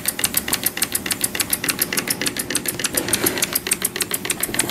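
Small single-cylinder PM Research model steam engine running slowly on low pressure, about 2 PSI. It keeps an even beat of about eight sharp exhaust clicks a second.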